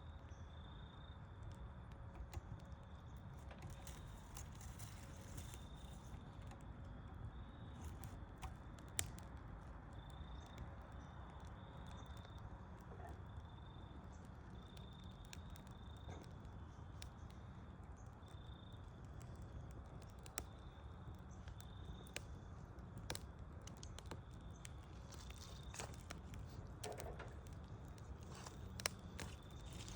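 Wood fire burning: a low steady rumble with scattered sharp pops and crackles, a few of them louder.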